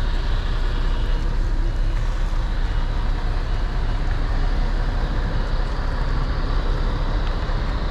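Steady low rumble of an idling truck diesel engine, with an even background hiss.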